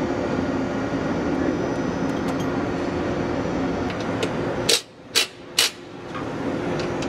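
Steady hum of assembly-plant machinery with a few faint ticks. About five seconds in, three short sharp bursts come in quick succession.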